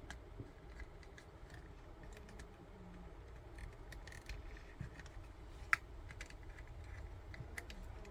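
Faint scattered clicks and taps of small plastic headphone parts and tools being handled and fitted during reassembly, with one sharper click about two-thirds of the way through.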